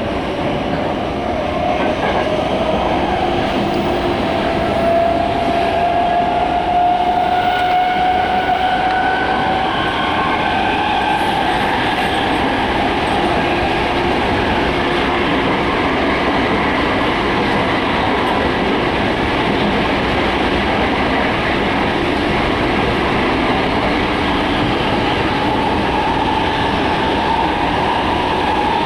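Tōyō Rapid Railway 2000 series electric commuter train heard from inside the car: steady running rumble and rail noise, with the traction motors' whine rising in pitch over the first ten seconds or so as the train picks up speed, then holding steady.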